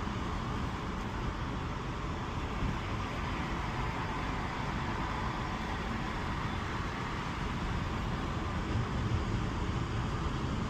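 Steady engine and tyre/road noise inside the cabin of a Holden VY Commodore driving at an even speed.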